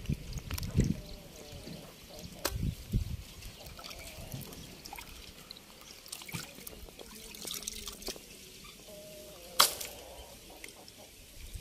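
Fish pieces being washed by hand in a pot of water: uneven splashing and trickling water, with scattered clicks and knocks as the pieces are handled, one sharp knock about two seconds before the end.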